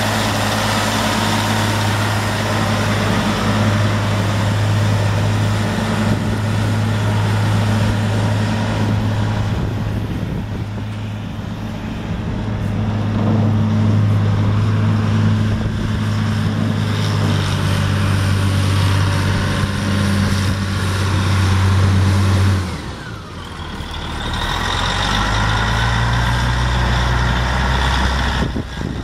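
Caterpillar 3406 six-cylinder diesel engine of a Steiger Panther III 4WD tractor running under way, a steady low engine note. About three-quarters through the note drops suddenly, then comes back lower with a rising whine as the tractor pulls again.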